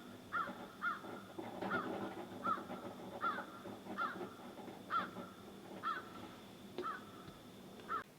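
A bird calling in a steady series, about ten short, evenly spaced calls roughly one a second.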